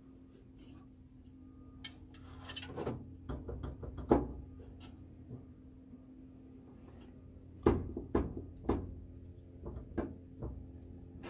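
Scattered short knocks and taps against sheet metal, loudest a little after four seconds and in a cluster near eight seconds, as the laser engraver's shimmed gantry is pressed and rocked to check whether its corners still knock. A faint steady hum runs underneath.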